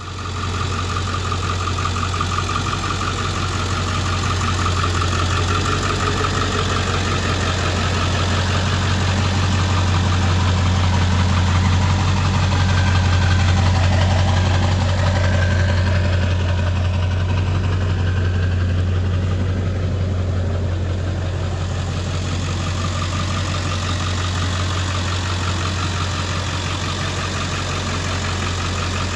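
Vehicle engine idling steadily, with a strong low hum and fast even firing pulses. It swells a little around the middle.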